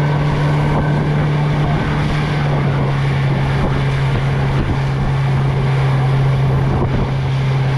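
115-horsepower outboard motor running steadily at cruising speed as the boat runs across open water, a constant low hum under wind buffeting the microphone.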